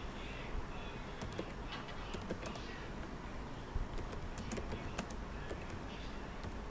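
Computer keyboard typing: a run of quick, irregular keystrokes starting about a second in and stopping shortly before the end, over a steady background hiss.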